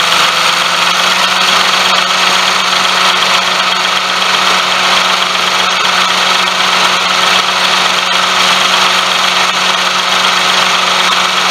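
Daihatsu Tanto (L375S) engine running with the air conditioning on, making a steady hum with a loud, even whirring noise over it: the abnormal noise the owner traced to a pulley bearing.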